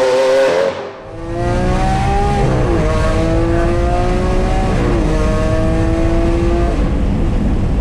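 Lamborghini Aventador V12 accelerating hard, at first heard from outside and then, from about a second in, from inside the cabin. The engine pitch climbs steadily and drops sharply at each upshift, three times.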